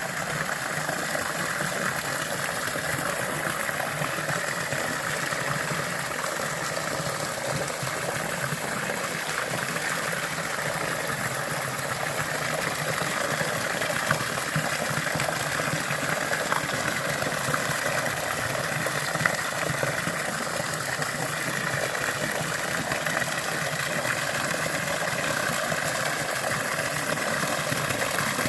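Small hot-springs waterfall: water falling and splashing steadily.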